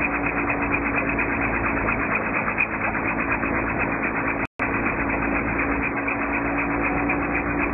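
Car engine and road noise of a vehicle towing a gyroplane on a rope at a steady speed, with a steady hum. The sound cuts out for an instant about four and a half seconds in.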